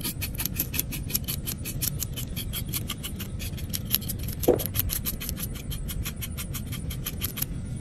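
Fillet knife scraping scales off a small fish on a plastic cutting board, rapid rasping strokes at about seven or eight a second that stop just before the end. A brief squeak sounds about halfway through.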